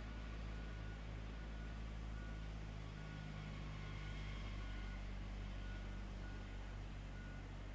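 Heavy machine's engine running steadily with a low drone, with a faint high tone pulsing about once a second.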